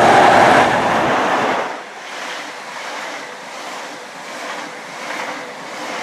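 InterCity 125 high-speed train passing at speed: the leading Class 43 power car's engine is loud for the first second and a half, then gives way to a steady rushing as the Mark 3 coaches go by.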